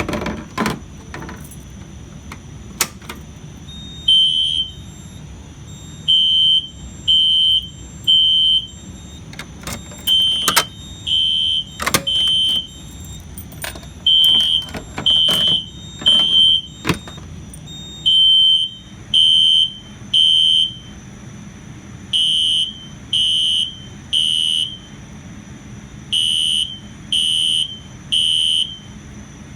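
A pull station is pulled with a few sharp clacks. About four seconds later a fire alarm horn starts beeping in temporal code 3 (groups of three short, high beeps, a group about every four seconds), the System Sensor Spectre Alert Classic horn set to code 3 at low volume, signalling an alarm.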